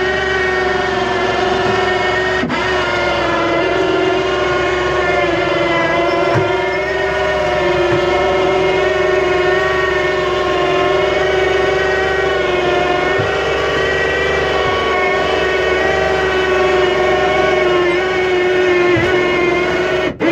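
Homemade wheelchair elevator's drive motor running with a steady, high, droning whine while the car travels between deck levels, stopping abruptly at the end as the car halts.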